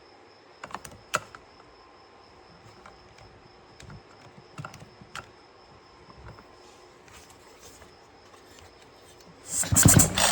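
Faint scattered clicks of handling, then near the end the recoil starter of a Husqvarna 445 chainsaw is pulled hard, turning the two-stroke engine over in loud repeated bursts during a spark test.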